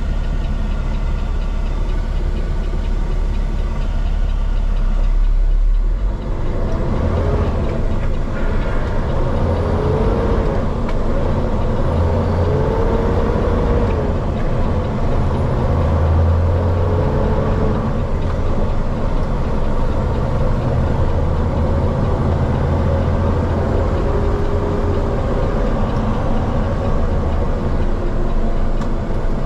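Diesel engine of a Peterbilt 389X rotator tow truck, heard from inside the cab while towing a heavy hyrail truck. It runs low and steady for about six seconds, then pulls away under load and works up through the gears, the engine note breaking off briefly at each shift.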